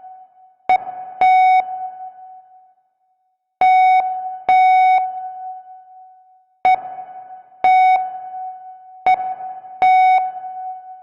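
Morse code keyed as a single mid-pitched tone: short and long beeps (dots and dashes) with longer gaps between groups. Each beep starts with a click and fades briefly after release.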